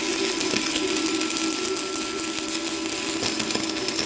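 Stick-welding arc crackling steadily as a rod electrode runs a bead on a steel strip.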